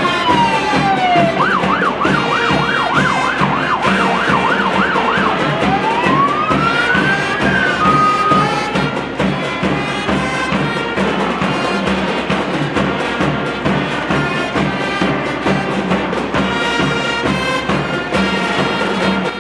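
Electronic emergency-vehicle siren: it sweeps down, yelps rapidly up and down for about four seconds, then rises and holds a tone before stopping about nine seconds in. Background music with a steady beat plays throughout and carries on alone after the siren stops.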